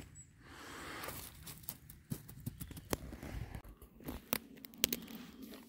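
Footsteps on dry pine-needle and twig litter: a soft rustle about half a second in, then a run of short sharp crackles and snaps.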